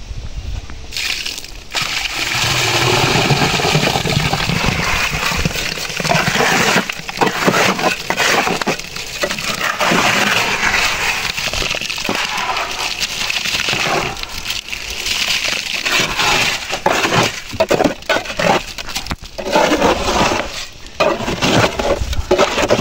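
Wet concrete sliding and slopping out of a tipped wheelbarrow into wooden formwork, with repeated scraping and knocking strokes as the load is worked out of the barrow.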